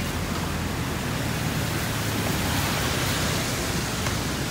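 Steady rushing noise of ocean surf and wind.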